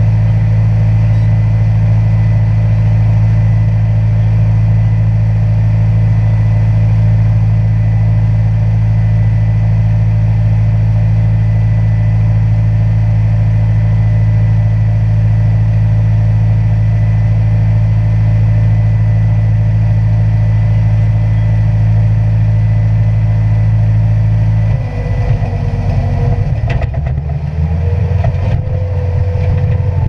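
Bobcat skid steer's diesel engine running steadily, heard from inside the open cage cab. About 25 seconds in, the note changes and turns uneven, with a higher wavering whine, as the machine starts moving.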